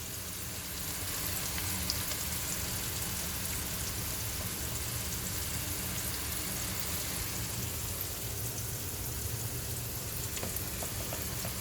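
Onions with freshly added turmeric and chilli powder sizzling steadily in hot oil in a karahi.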